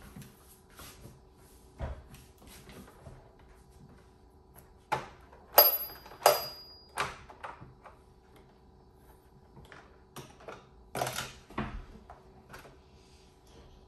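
Irregular plastic clicks and knocks as pieces are handled and pressed onto a plastic Hot Wheels playset, with the loudest clatter in the middle and another cluster near the end.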